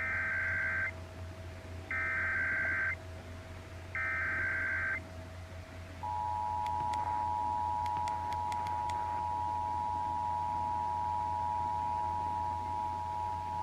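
Emergency Alert System header: three one-second bursts of SAME digital data tones, a second apart, then about six seconds in the steady two-tone EAS attention signal (853 and 960 Hz) starts and holds. Together they open a Required Monthly Test on broadcast radio. A faint steady whistle runs underneath.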